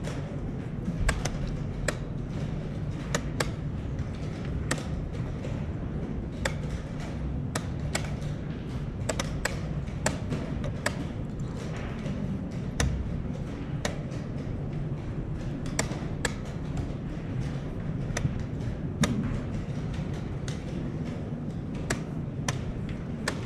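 Wooden chess pieces set down hard and chess clock buttons slapped in quick succession during a blitz time scramble: irregular sharp taps and knocks, about one to two a second, over the low murmur of a playing hall.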